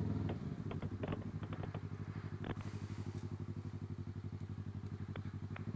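Yamaha MT-25 motorcycle's 249 cc parallel-twin engine idling steadily with an even, fast pulse, with a few light clicks over it.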